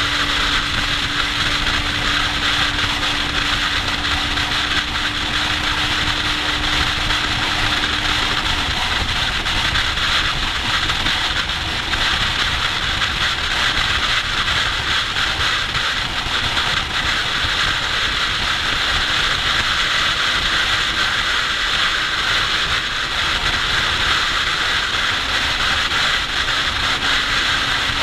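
Wind rushing over a motorcycle-mounted camera at motorway speed, a steady loud hiss, with the sport motorcycle's engine droning steadily underneath; the engine note steps slightly higher about nine seconds in.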